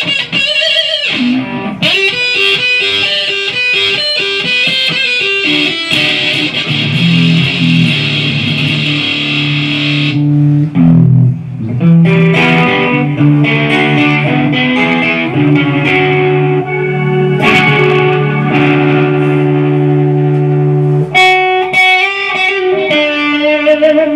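Modified Kazuki Baby 1 short-scale electric guitar played through a 50-watt EVH amp head and a multi-effects unit, picked up by the camera's own microphone. It plays fast picked single-note lines, then held low notes with a melody over them from about seven seconds in, with a short break near the middle, and quick runs again near the end.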